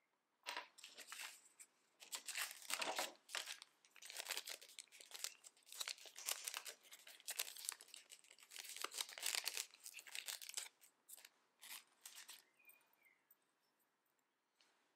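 Wrapping crinkled and rustled by hand in irregular bursts, a light scratchy sound that stops about twelve seconds in.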